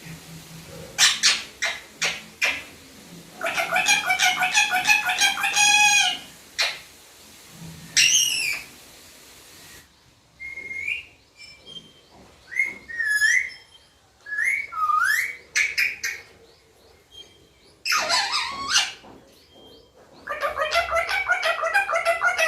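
Indian ringneck parakeet calling: sharp screeches, bursts of rapid chattering, and midway a string of whistled notes that slide up and down in pitch.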